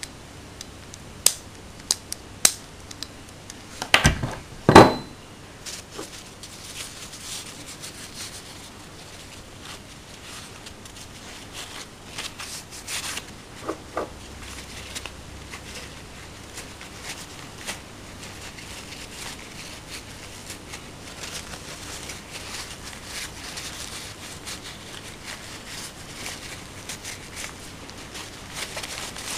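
Metal parts of a Hi-Capa 3.8 airsoft pistol being handled and set down on a wooden table. A few sharp clicks, then two louder knocks about four and five seconds in, the second with a short ring. After that come small scattered clicks, then soft paper rustling near the end.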